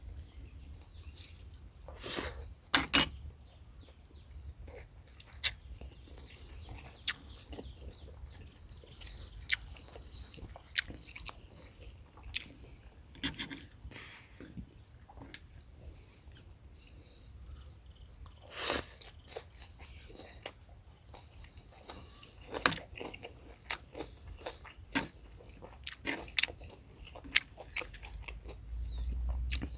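Insects droning steadily at a high pitch, with scattered sharp clicks and knocks over the top.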